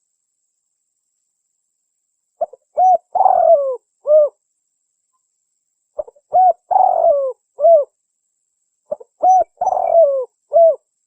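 Spotted dove cooing: three repeated phrases about three and a half seconds apart, each a couple of short coos, a longer coo that falls in pitch, and a short closing coo.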